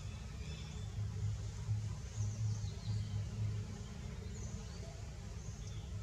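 Outdoor ambience: a low, uneven rumble with faint, high bird chirps scattered through it.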